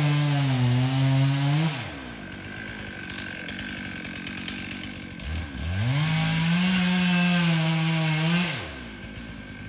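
Two-stroke chainsaw cutting wood at full throttle, its pitch sagging under load, then dropping back to idle just under two seconds in. It revs up again about five and a half seconds in for a cut of roughly three seconds, then falls back to idle near the end.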